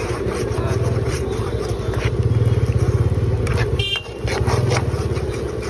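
A motor vehicle engine running close by with a steady low throb, swelling a little in the middle and dipping briefly about four seconds in, with scattered light clicks over it.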